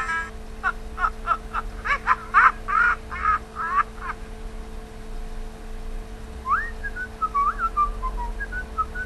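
High, squeaky notes sung as a tune: about ten short bending notes in quick succession. After a pause of about two seconds comes one rising note and then a run of short falling notes.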